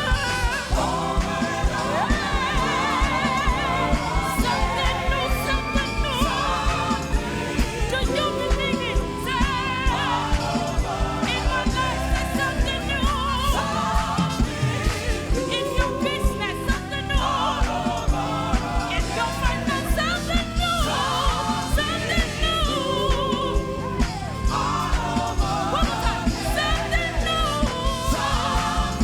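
Gospel song performed by singers with a band, with a steady drum beat under the voices.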